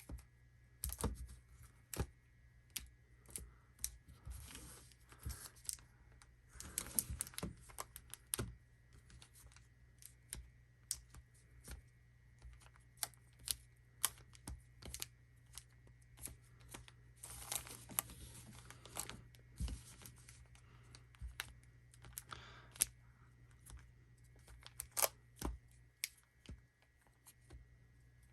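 Sealed foil card packs being shuffled together by hand: a steady run of light taps and clicks as the packs knock and slide against each other, with a few longer stretches of wrapper crinkling.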